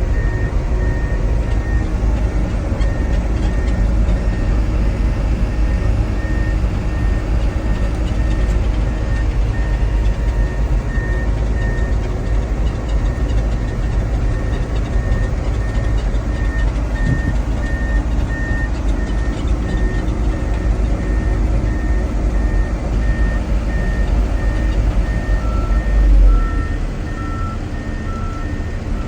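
Bulldozer engine running with heavy low-end sound while its reversing alarm beeps steadily and evenly. Near the end, a second, lower-pitched backup alarm starts beeping alongside it.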